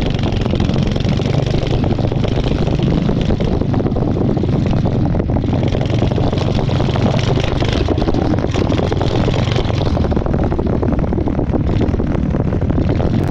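Two-wheel tractor's engine running steadily under way as the machine drives across grass.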